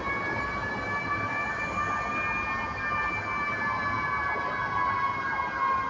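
Emergency siren sounding one long, slowly wavering tone that climbs a little and then sags, over a low background rumble.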